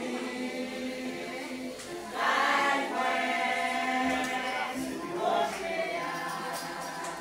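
Church choir singing together in sustained, held notes, swelling louder about two seconds in.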